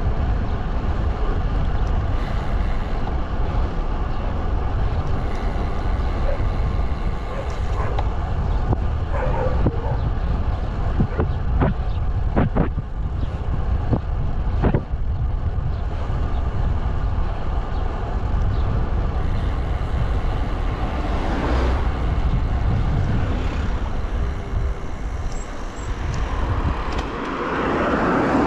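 Wind and road noise rushing over an action camera's microphone while riding a road bike, a steady low rumble. A few sharp clicks or knocks come around the middle.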